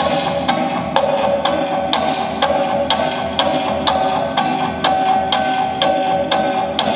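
Nylon-string classical guitar played live over a steady woody percussive click, about two beats a second.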